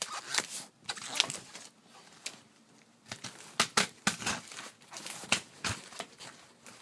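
Packaging being handled as a box is opened: irregular rustling and crinkling with sharp clicks and taps.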